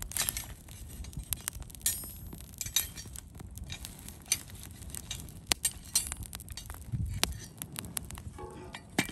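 Glass and dishes clinking: a run of irregular sharp clinks and taps, some ringing briefly.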